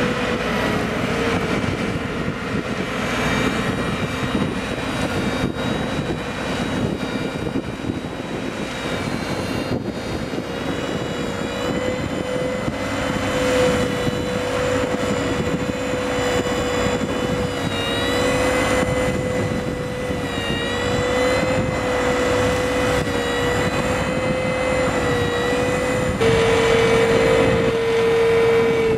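Rolmex KR520 reach mower's hydraulically driven flail head spinning and cutting grass, with the tractor running: a steady high whine over a dense rushing noise, getting louder near the end.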